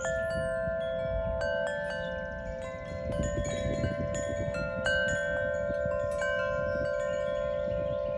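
Wind chimes ringing, tubes struck at irregular moments so that several long-ringing notes overlap.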